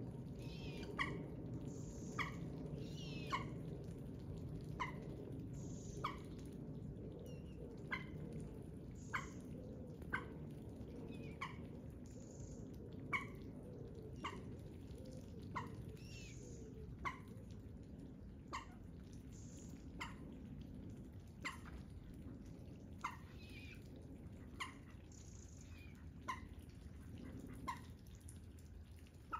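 A bird's short, sharp call repeated evenly about once every second or so, over a faint steady low rumble.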